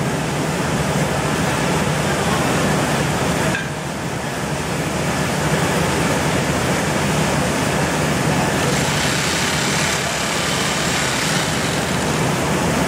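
Rice-milling machinery running steadily: a constant low hum under a broad, even rushing noise, easing off slightly about three and a half seconds in.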